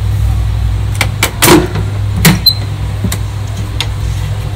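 Knocks and clatters from a tabletop wet grinder's steel drum and stone rollers being handled as rice batter is taken out. About six sharp knocks, irregularly spaced, over a steady low hum.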